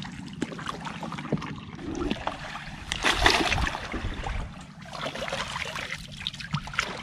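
Water sloshing and splashing against a wooden boat as a man wades waist-deep beside it, with a louder spell of splashing about three seconds in.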